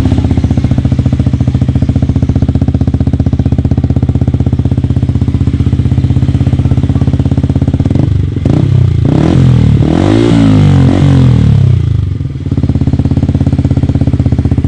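Motorcycle fitted with a Triton stainless full-system aftermarket exhaust, idling with a steady, even pulse. It is revved a few times about eight to twelve seconds in, then settles back to idle.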